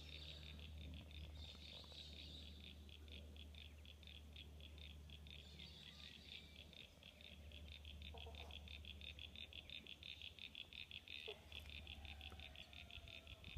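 Frogs calling from a shallow creek: a continuous, fast, even train of faint high-pitched pulses, with a low steady rumble beneath.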